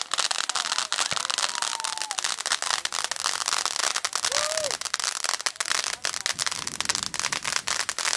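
Ground fireworks going off: a dense, fast crackling of many small bangs over a steady hiss.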